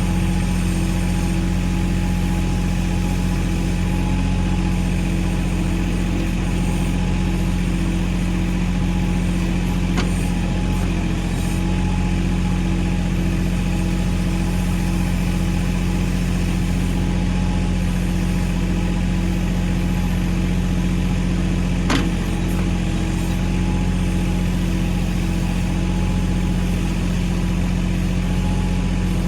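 Mahindra 1626 compact tractor's diesel engine running at a steady speed. Two brief sharp knocks, about a third of the way in and again about three quarters of the way through.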